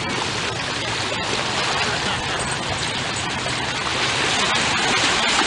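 Small ocean waves breaking and washing in over shallow water, a steady rushing hiss that grows a little louder near the end.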